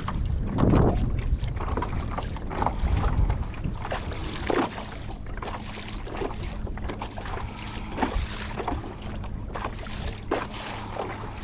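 Small waves lapping and slapping irregularly against the hull of a Hobie Lynx kayak under way, with wind buffeting the microphone, heaviest in the first second.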